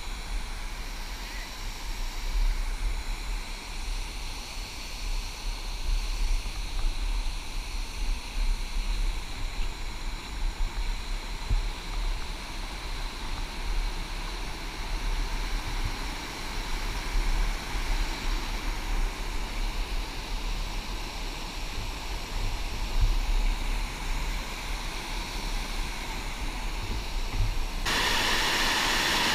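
Running water rushing steadily, with a fluctuating low rumble of wind on the microphone. Shortly before the end the sound switches abruptly to a louder, steadier rush.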